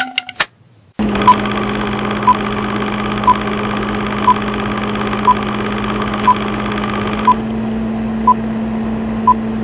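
Film-countdown sound effect: a steady film-projector whirr with a low hum, with a short beep once a second as the countdown ticks down. A few clicks come just before the whirr starts.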